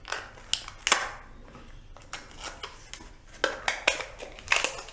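Irregular small plastic clicks and rustling from hands handling a RAM module and laptop parts, a dozen or so sharp taps, the loudest about a second in and again near the end.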